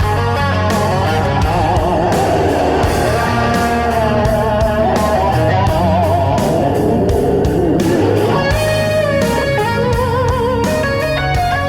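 Rock music with electric guitar soloing over a steady beat, no singing.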